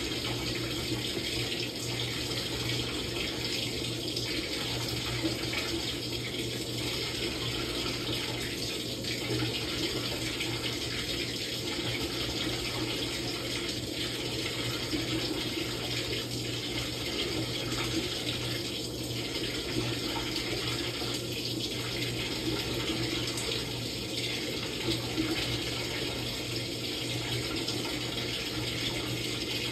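Samsung top-load washing machine running a quick wash cycle: steady water noise over a constant low hum.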